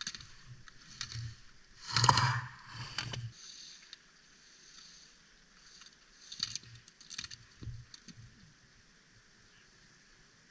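Ski edges scraping across hard-packed snow as a slalom racer carves through the gates. The loudest scrape comes about two seconds in, followed by a few sharp clicks a few seconds later.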